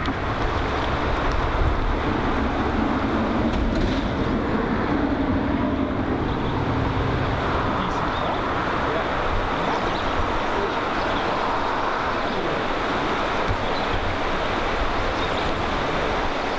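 Steady rush of flowing river water, a dense even noise with no pauses or sudden events.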